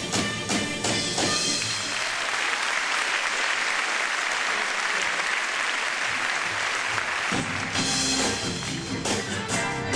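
Audience applause, a dense even clapping, that takes over about two seconds in as the rhythmic backing music drops out, lasting about five seconds before the music comes back in.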